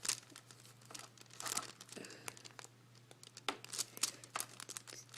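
Play-Doh being worked and pulled apart by hand: irregular soft rustles, tearing sounds and small clicks, over a faint steady low hum.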